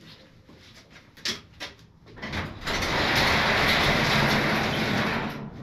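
Overhead garage door being opened: a few light clicks, then a steady rolling noise for about three seconds that fades out shortly before the end.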